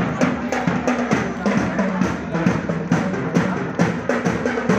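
A drum band playing live: bass and snare drums beating at a quick, steady pace, with held low notes from a pitched instrument.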